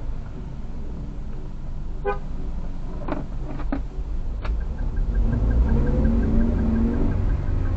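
Car horn tooting in short, quick taps, four in about two and a half seconds. Then a car engine revs up and grows louder as the car pulls away from a standstill, heard from inside the cabin, with a fast, even ticking joining in.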